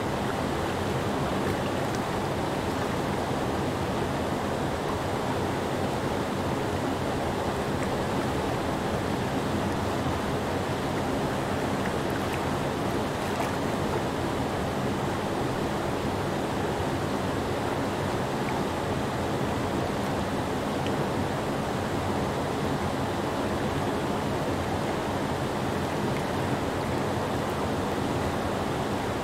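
Creek whitewater pouring over a low rock ledge in a small cascade: a steady, unchanging rush of water, fullest in the low and middle range.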